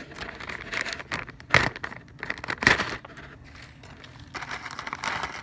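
Small metal parts clinking and rustling as they are handled on a workbench, with two sharp knocks about a second and a half and nearly three seconds in.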